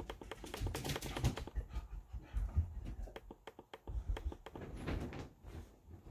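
Irregular clicking on a laptop keyboard, a quick uneven run of key clicks with a few low thumps of the machine being handled.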